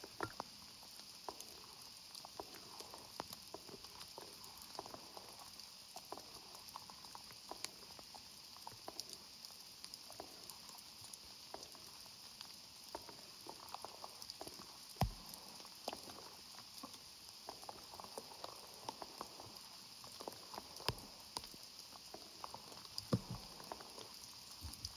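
Heavy rain: a faint steady hiss with scattered ticks of drops pattering.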